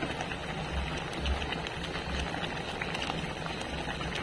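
Chili-and-tamarind gravy boiling hard in a pan, a steady bubbling with many small pops, over a low steady hum.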